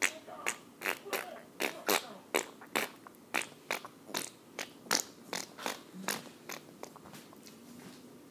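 A long run of short, wet smacking squelches made with a hand, about two a second and fading near the end: a child's hand "fart gun" imitating farts.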